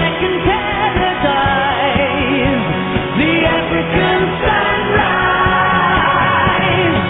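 A pop-style song playing: a singing voice carrying a wavering melody over a band accompaniment with a steady beat.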